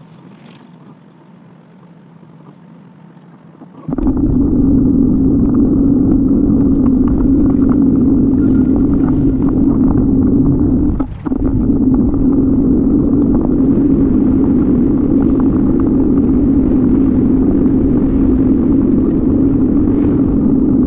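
Steady wind and road noise from a camera riding on a moving bicycle. It is much quieter for the first four seconds, then loud and even, with a brief drop about eleven seconds in.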